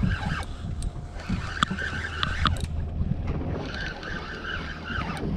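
A spinning reel being cranked to wind a fish up from deep water, its gears whirring in spells, with a few sharp clicks about two seconds in. Wind buffets the microphone over a low steady hum.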